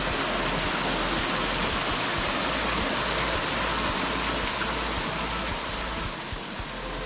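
Artificial rock waterfall pouring into a pond, a steady rush of falling, splashing water that eases slightly near the end.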